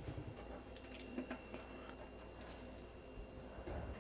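Faint dripping and trickling of liquid from wet grated cassava pulp wrung out by hand over a colander into a stainless-steel sink, with a few small ticks.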